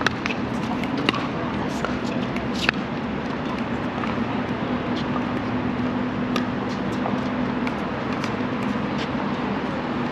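Pickleball paddles striking a plastic ball: sharp pops at irregular intervals, the loudest about a second in and near three seconds in, over steady outdoor background noise with a low hum.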